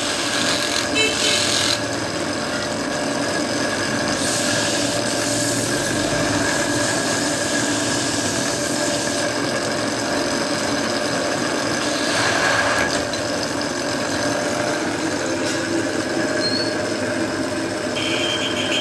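A belt-driven wood lathe runs with a steady hum while a hand chisel cuts and scrapes a spinning wooden rolling-pin piece. Louder stretches of cutting hiss come about four seconds in and again about twelve seconds in.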